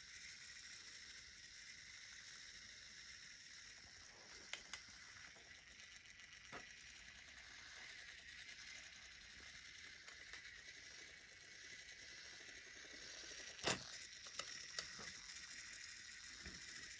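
Faint, steady high whir of a battery-powered wooden toy train's small motor as it runs along wooden track, with a few sharp clicks from the wheels crossing track joints, the loudest just before the end.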